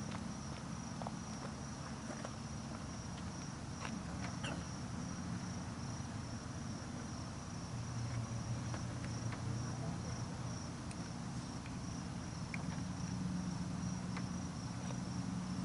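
Crickets chirping in a steady, finely pulsing high trill, over a low hum that grows stronger about halfway through.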